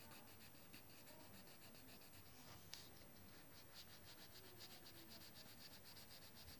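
Yellow coloured pencil scribbling on workbook paper: a quick, even run of faint back-and-forth strokes, with one sharper tick nearly three seconds in.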